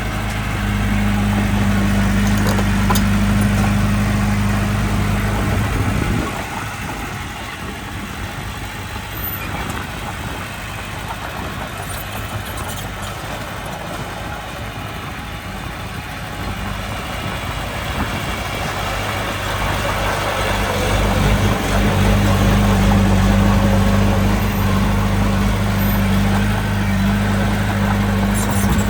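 Diesel engine of heavy earthmoving machinery running with a steady low drone. The drone drops away about six seconds in, leaving a rougher, quieter machine noise. It builds back to the steady drone in the last third.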